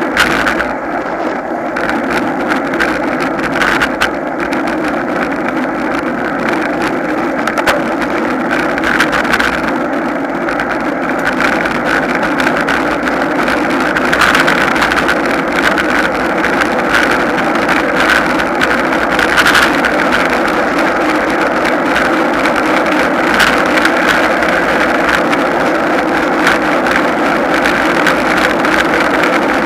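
Steady rushing wind and road noise from an action camera on a racing bicycle riding at speed, with a few brief knocks.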